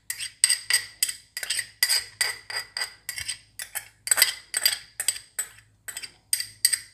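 Repeated clinking taps, about three a second, each with a short ring, as a bowl and spoon are knocked against a pressure cooker to empty moong dal into it.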